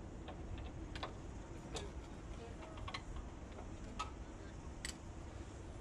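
Scattered light clicks and taps, roughly one a second, from hands and fittings working a blanket-wrapped glass balustrade panel, over a low steady background rumble.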